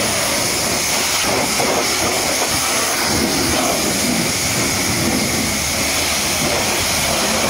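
High-pressure water jet spraying a truck's rear tyre, wheel and mudguard: a loud, steady hiss of water striking rubber and metal.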